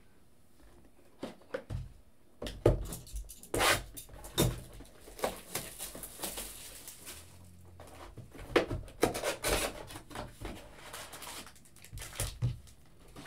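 A box of Certified football card packs being handled on a tabletop: irregular knocks and taps, with crinkling of the foil-wrapped packs as they are taken out and stacked.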